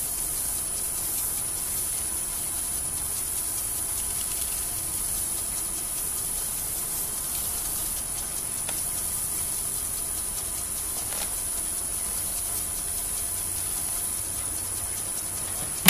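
Jet 1642 wood lathe running steadily, a hiss with a constant high whine, while a paper towel rubs Danish oil onto the spinning maple workpiece. A click at the very end.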